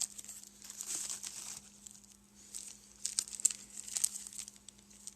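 Small plastic bags of 3D-printed model parts being handled and crinkled, in two bursts of crackling with a pause between.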